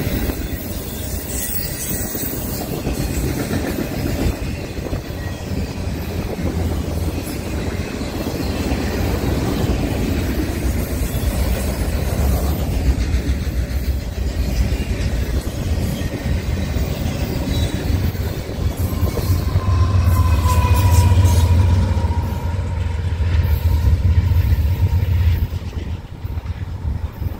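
A long freight train of autorack cars rolling past at close range, its wheels rumbling steadily on the rail with some clickety-clack. The rumble swells about two-thirds of the way through, when a thin high tone slides slightly downward for a few seconds, and it eases off near the end.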